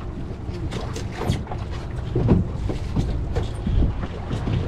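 A boat's engine hums steadily at a low pitch, with wind on the microphone and a few scattered knocks on the boat, the loudest about halfway through.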